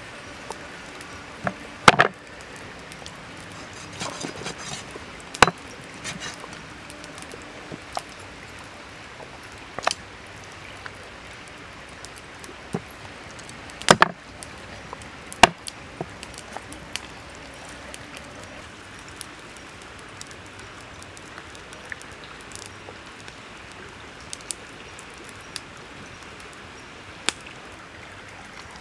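A cleaver and a knife cutting raw pork belly on a wooden chopping block. The blade knocks sharply on the wood now and then, a few seconds apart, with the loudest strokes near the start and about halfway through.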